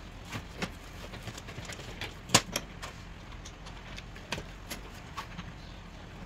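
Scattered light metal clicks and knocks as a gear on a steel shaft is handled and set in a bench vise, with one sharper knock about two seconds in; the angle grinder is not running.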